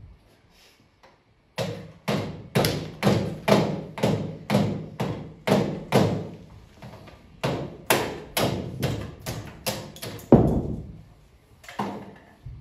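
A hammer striking a funnel-shaped noise-maker sculpture in a steady run of blows, about two a second, each ringing briefly; there is a short pause midway, the loudest blow falls near the end of the run, and two more blows follow after a gap.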